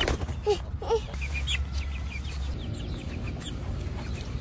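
Chicken clucking in a few short calls about half a second and a second in, then softer, higher clucks.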